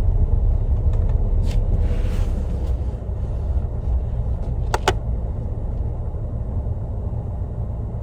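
Car cabin rumble from engine and road noise, steady and low, with a quick double click about five seconds in.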